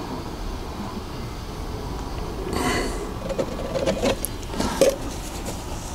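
Partly emptied plastic jug of transmission fluid being handled and tipped to check the level: a brief scrape about two and a half seconds in, then a few light plastic knocks, over a steady low background hum.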